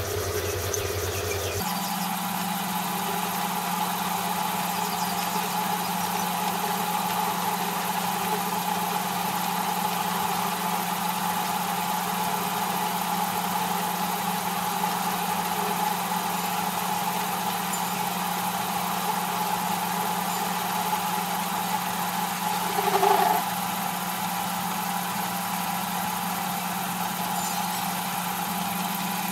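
Small metal lathe switched on and running steadily with a motor hum and whine while taking a turning cut on a metal shaft held in a collet chuck. The sound grows briefly louder for about a second near the end.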